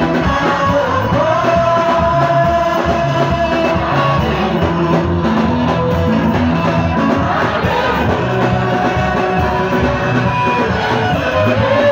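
Loud dance music with singing and guitar, with long held notes in the melody.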